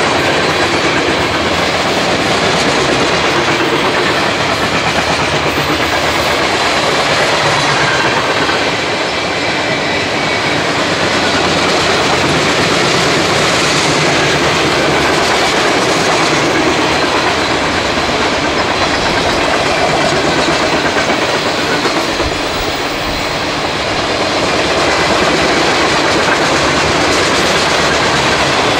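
CSX freight train's cars rolling past, wheels clacking over the rail joints in a steady, loud rumble.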